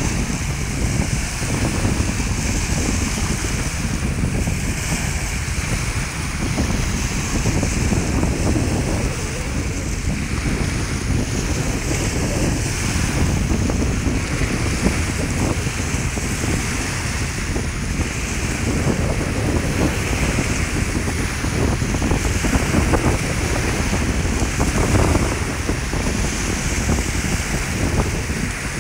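Small Lake Erie waves breaking and washing up on a sandy beach, mixed with steady wind rumbling on the microphone.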